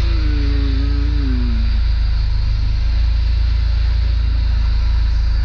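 Supercharged Honda Civic SOHC engine (Jackson Racing supercharger) idling steadily while still cold, short of operating temperature, its idle maybe a little high. A short pitched tone that falls slightly sounds over the idle in the first two seconds.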